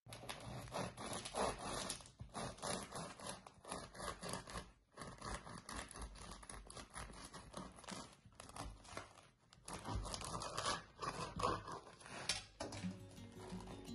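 Bread knife sawing back and forth through a crisp-crusted loaf of homemade no-knead white bread, the crust crunching and the blade scraping with each uneven stroke.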